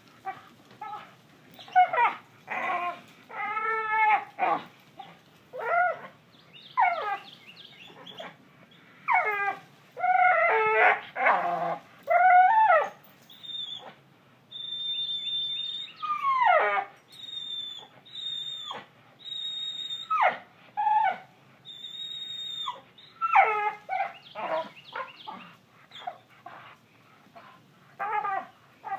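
A dog whining and yelping excitedly: many short, high calls that drop in pitch, and in the middle a run of long, steady, very high whines, each about a second.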